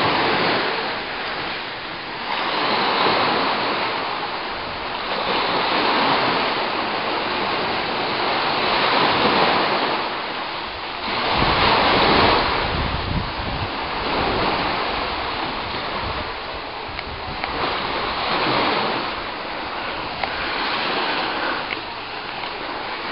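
Choppy water of a rising tide rushing and washing, swelling in surges every two to three seconds, with wind rumbling on the microphone about halfway through.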